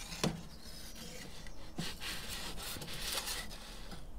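Metal pizza peel scraping and sliding across the stone floor of an Ooni Pro wood-fired oven as a pizza is pushed in, with a light knock early on and another just under two seconds in.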